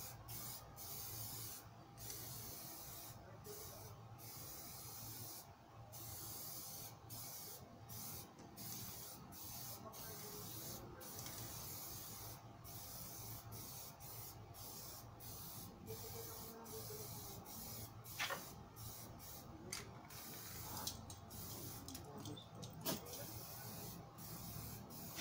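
Electric spray paint gun in use: a steady motor buzz with a hiss of spray that comes in spurts of one to two seconds as the trigger is pulled and released.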